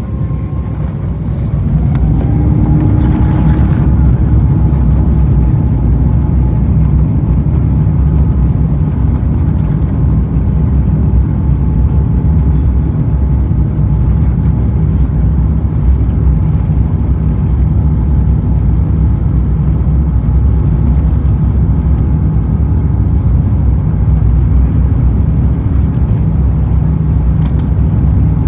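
Airbus A350's Rolls-Royce Trent XWB engines spooling up to takeoff power: a whine rises in pitch over the first couple of seconds as the sound swells. Then a loud, steady low rumble holds at full thrust.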